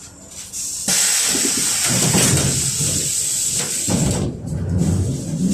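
A sudden loud burst of compressed air hissing from a ZiU-682G trolleybus's pneumatic system, lasting about three seconds. Under it a low rumble from the trolleybus comes in and keeps going.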